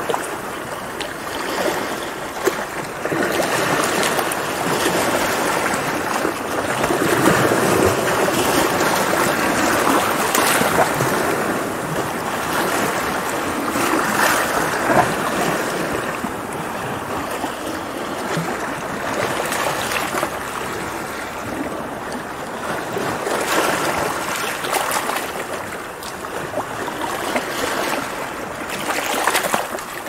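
Ocean surf: waves breaking and washing in a continuous rush that swells and eases every few seconds, with the odd brighter splash.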